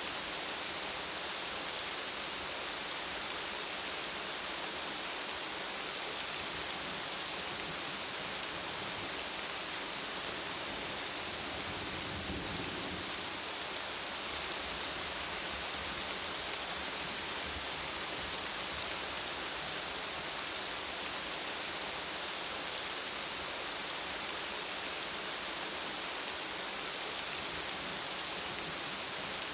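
Steady rain, an even hiss of falling drops, with a brief low rumble about twelve seconds in.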